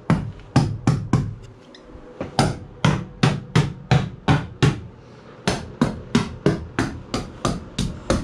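Wooden handle of a sound-deadening roller rapped repeatedly on the van's sheet-steel floor panels, partly covered with Silent Coat damping mat. The knocks come about three a second in runs with two short pauses. It is a tap test of how well the damping mat deadens the panels.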